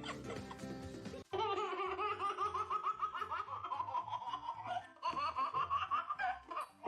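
A baby laughing in a long run of short, high-pitched bursts, over background music with a steady beat. The laughing starts after an abrupt break about a second in.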